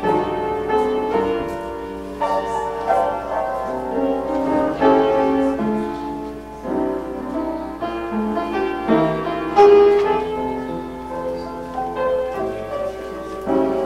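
Keyboard music played solo: slow held chords changing every second or so, with a single louder note about ten seconds in.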